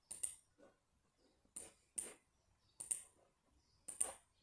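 Computer mouse clicking: about six faint, sharp clicks at uneven intervals while the pen tool is being picked from an on-screen menu.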